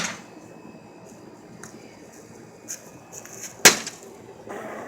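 A golf club hits a microwave oven once, a sharp crack about three and a half seconds in. A couple of faint clicks come just before it, and the ringing tail of an earlier hit fades at the start.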